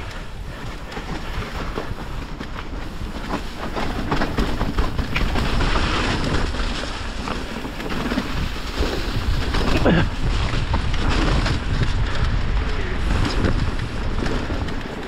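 Mountain bike riding down a wet, muddy trail: wind rushing over the camera microphone, with the tyres running through the slop and the bike rattling and knocking over bumps. It grows louder about four seconds in, as the speed picks up.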